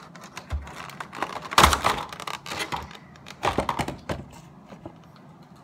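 Cardboard Funko Pop window box being handled and opened: irregular clicks, taps and scrapes of cardboard and plastic, with louder bursts about a second and a half in and again around three and a half seconds.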